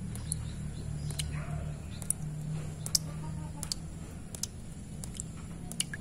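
Water drops falling into a shallow, stony puddle, making sharp, irregular plinks about twice a second over a steady low hum.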